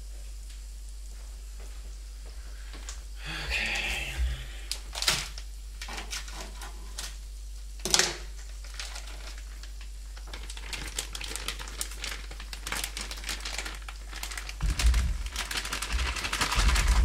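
A plastic bag of potato noodles crinkling and being cut open with scissors, with two sharp snips, over faint crackling from a frying pan of hot oil. Near the end the noodles are tipped out of the bag into the pan with a louder rush of rustling and sizzling.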